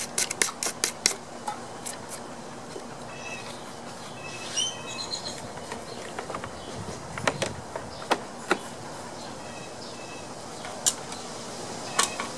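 Scattered sharp clicks and taps of hands working on a lawn mower's engine parts, with a quick run of clicks in the first second and single clicks later. A bird chirps a few short high notes around four to five seconds in.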